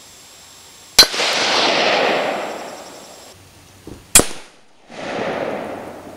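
Two .223 rifle shots striking an AR500 steel plate at close range, about three seconds apart: each a sharp crack with the bullet's clang on the steel, followed by a fading echo of about two seconds.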